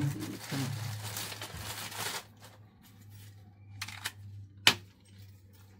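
Plastic packaging bag crinkling and rustling for about two seconds as a shoulder strap is pulled out of it, then a few light clicks and one sharp click about three-quarters of the way through as the strap's clip is handled.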